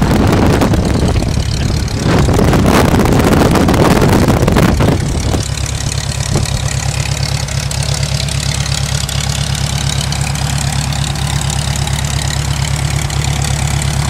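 Aeronca L-3's small four-cylinder Continental engine idling: loud and close for the first five seconds, then a steadier, lower, even idle. The pilot remarks that the idle is set a little too high.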